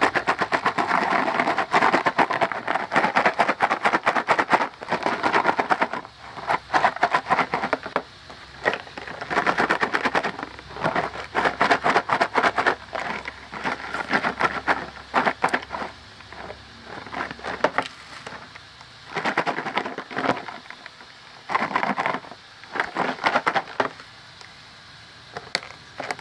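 French fries shaken in a lidded plastic container to coat them with cheese powder: a dry rattling and rustling of fries against the plastic, in repeated bouts with short pauses, the bouts growing shorter and sparser toward the end.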